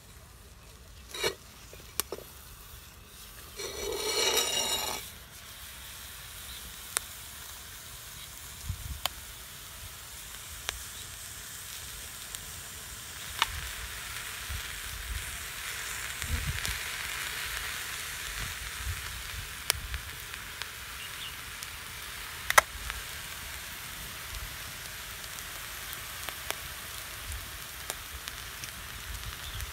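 Steady sizzling hiss from a chicken baking on hot coarse salt in a clay pot over a wood fire, with sharp crackles every few seconds. About four seconds in comes a brief scrape as the clay lid comes off the pot.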